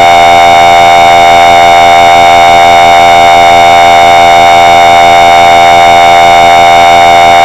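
Emergency Alert System attention signal: a loud, steady two-tone alarm, the 853 Hz and 960 Hz tones sounding together, held unchanged and cutting off abruptly near the end.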